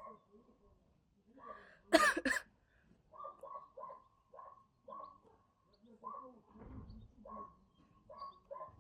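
A woman coughs twice in quick succession about two seconds in, the loudest sound, a smoker's cough. Short chirps at one pitch repeat two or three times a second throughout.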